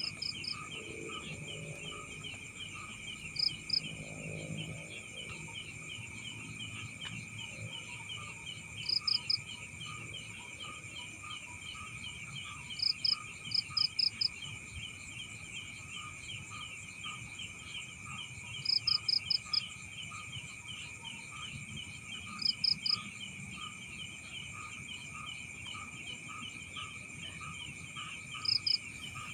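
A chorus of crickets and other night insects: a steady shrill trill with a fast pulse and a lower note repeating a few times a second. Every few seconds a short burst of two to five loud, high chirps stands out, about six times in all.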